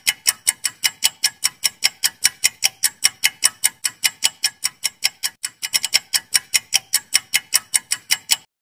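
Quiz countdown-timer sound effect: a clock ticking quickly and evenly, about five ticks a second, cutting off suddenly near the end.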